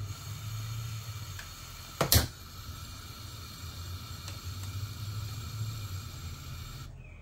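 Gas hob burner running on a low blue flame, a steady low hum, with one sharp click about two seconds in.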